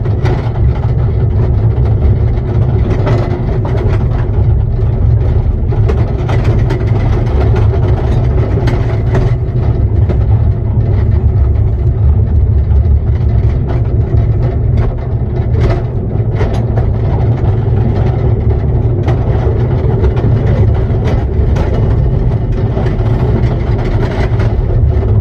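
Ride-on miniature railway train running, heard from the coach just behind the locomotive: a steady low rumble from the wheels on the track, with scattered clicks and knocks throughout.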